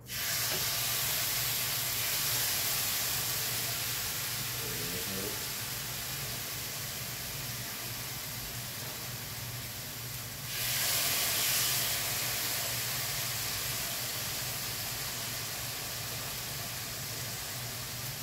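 Marinated lamb chops searing in a hot pan, a loud, steady sizzle that starts abruptly and jumps louder again about ten seconds in.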